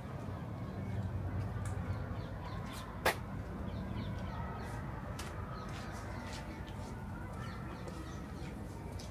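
Quiet city ambience: a steady low distant hum with scattered faint chirps and ticks, and one sharp click about three seconds in.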